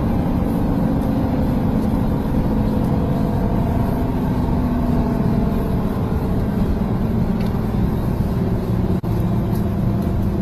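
Steady road-vehicle noise: engine and tyre rumble of traffic on a freeway, an even low drone throughout.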